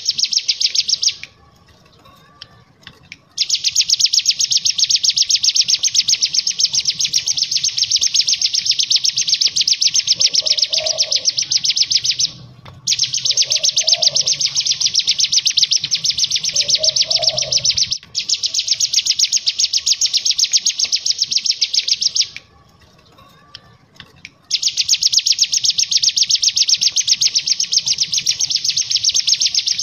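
Ciblek gunung (cigun) singing a very fast, dry rattling trill (ngebren), in long runs of several seconds broken by three or four short pauses.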